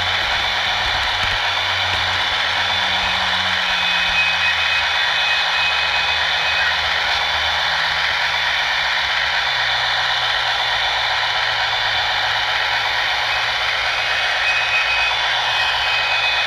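Model train running on its track, heard up close from a camera riding on it: a steady whirring rumble from the electric motor, gearing and wheels on the rails. Under it a low hum sinks slightly in pitch through the middle.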